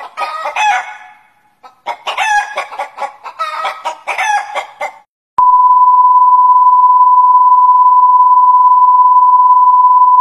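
Rapid, chicken-like clucking and squawking calls for about five seconds, broken by a short gap, then a single steady beep tone that starts abruptly about halfway through and holds at one pitch, louder than the clucking.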